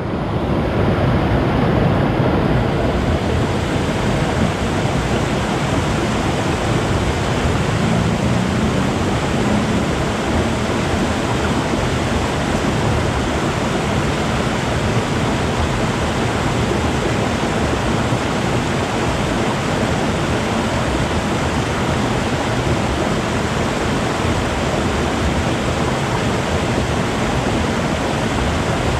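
River water flowing and gurgling, a steady unbroken rush.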